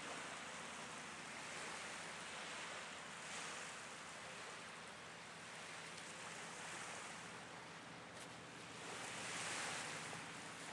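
Small waves washing softly onto a sandy beach from a calm sea, swelling about three seconds in and again near the end.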